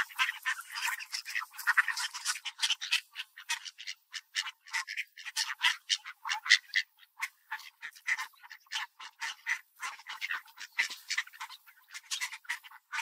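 A flock of mallard ducks feeding on scattered seed, giving a continual run of short, raspy low quacks and clicks, several a second and irregular.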